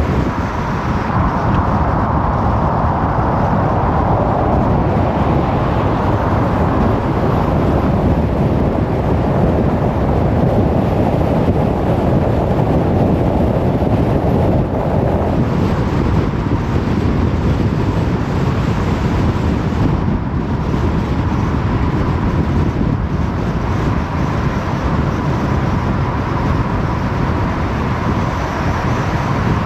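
A car driving along a road: steady road and tyre noise with a low rumble, and a faint steady high whine through much of it.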